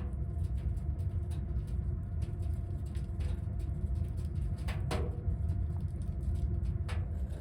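Wood fire crackling in a small airtight wood stove: sharp irregular pops and snaps over a steady low rumble, with louder cracks about five seconds in and again near the end.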